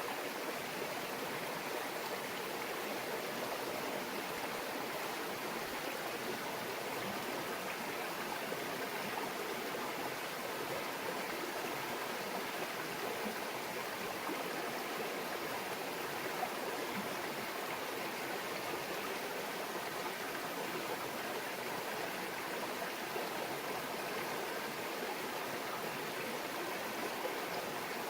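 A shallow brook murmuring steadily, an even rush of running water with no breaks.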